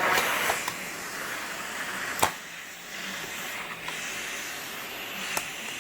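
Central vacuum running, its suction hissing steadily through the hose and wand, with air leaking out at a joint. Two sharp clicks come, about two seconds in and near the end.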